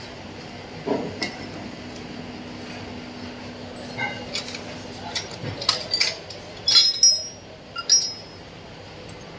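Sharp metallic clinks and clanks of steel tools and die parts being handled, a scattered run of knocks that is loudest around seven to eight seconds in. A faint steady hum runs underneath from about a second in until about halfway.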